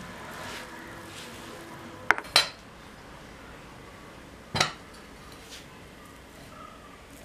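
A steel spoon scraping and stirring a sticky sesame and jaggery mixture in a kadai, with soft repeated strokes. About two seconds in come two sharp metal clanks close together, and another a couple of seconds later, as the kadai is moved off the gas stove and set down on a steel ring stand.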